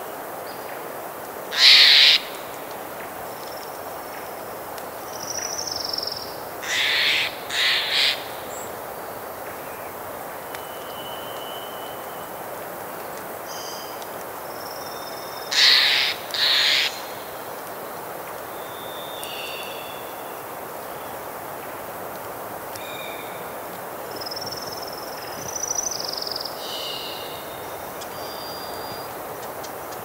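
Loud harsh calls of a corvid, a magpie or Steller's jay: one about two seconds in, a quick pair around seven to eight seconds and another pair around sixteen seconds. Between them, thin whistled songs of a hermit thrush and other birds sound over a steady wash of wind and a distant river.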